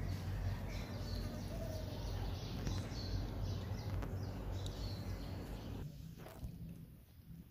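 Cats eating fish scraps from a plate: chewing with many small clicks over a steady low hum, and a few short bird chirps. It gets quieter about six seconds in.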